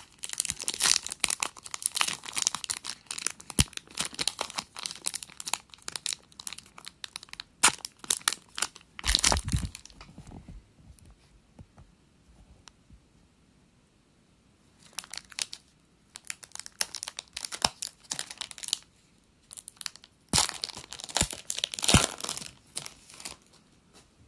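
A foil trading-card pack wrapper being torn open and crinkled: a long stretch of crackling, a pause of a few seconds, then two shorter bursts of crinkling.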